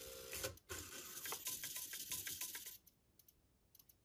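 Kyosho Mini-Z MR-03 drivetrain running under radio control: a brief motor whine, then a dense chatter of rapid clicks from the small gears that stops about three seconds in, followed by a few faint ticks. It shows the car responding to the converted transmitter on MHS.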